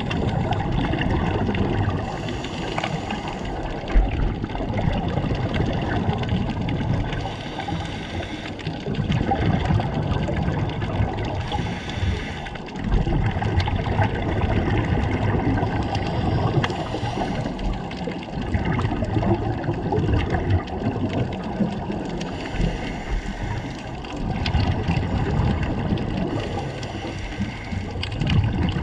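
Underwater sound of a scuba diver breathing through a regulator: a hiss comes with each breath about every five seconds, between bubbling, rumbling exhalations.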